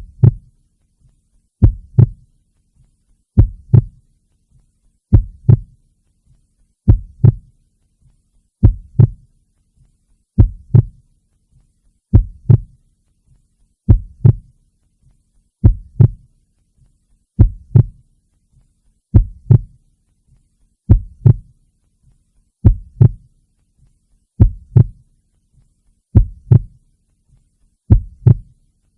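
A slow, even heartbeat: paired deep lub-dub thumps repeating about once every second and three quarters.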